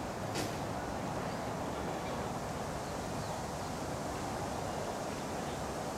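Steady outdoor background noise, with a single faint click about half a second in.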